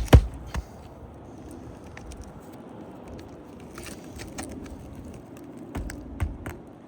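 Hammer blows driving roofing nails through an architectural shingle: the last two strikes of a quick run right at the start, then two more strikes near the end.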